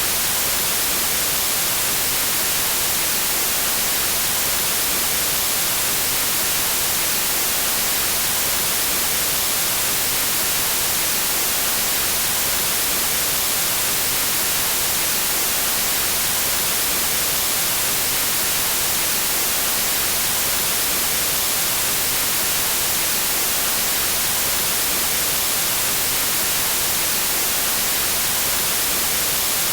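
Steady synthetic white noise: an even, unchanging hiss that is strongest in the high frequencies.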